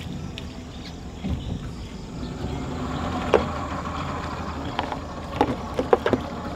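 Small boat's motor idling with a steady low hum. A few sharp knocks and clicks come in the second half.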